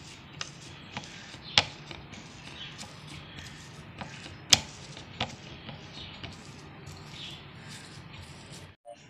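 Metal fork mashing boiled potato on a ceramic plate: irregular sharp clinks of the tines striking the plate, two louder ones about a second and a half and four and a half seconds in.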